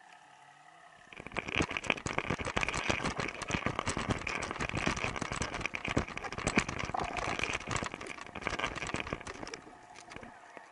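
Dense, rapid clicking and crackling picked up by an underwater microphone. It starts abruptly about a second in and fades out near the end.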